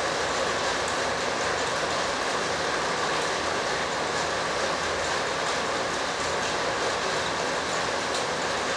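Steady rushing background noise with faint light ticks, even in level throughout.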